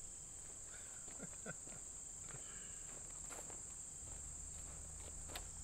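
Steady high-pitched insect chorus from the surrounding grass, with a few faint footsteps through grass.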